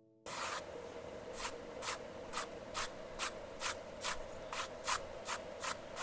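Flat paintbrush dragged over a canvas panel in quick repeated strokes, about two a second, dry-brushing white acrylic paint into light rays. It starts suddenly a moment in.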